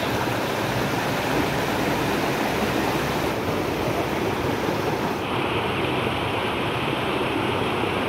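Small waterfall splashing over rocks into a shallow pool, a steady rush of water. About five seconds in, the sound turns a little brighter and less hissy.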